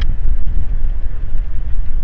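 Loud, steady low rumble of wind buffeting the microphone.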